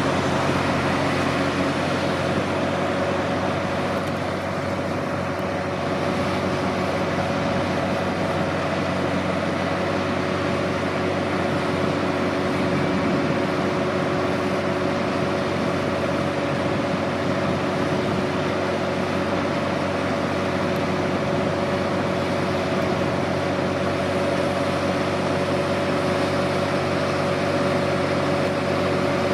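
Heavy construction machinery's diesel engine running steadily with a constant hum and a steady higher whine, its level unchanging.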